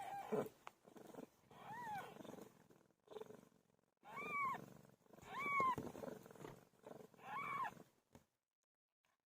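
A cat meowing: about four separate rising-and-falling meows, with softer sounds between them.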